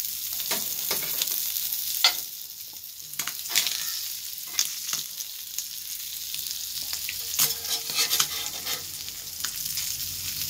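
Sardines sizzling in a little oil on a cast-iron tawa, a steady hiss, with a metal spatula scraping and tapping the pan at irregular moments as the fish are turned.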